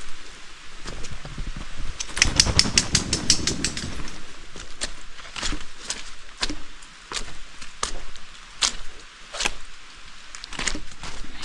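Hiking footsteps on a trail at an even walking pace, each step a short crisp crunch, with a quick flurry of clicking and rustling about two seconds in.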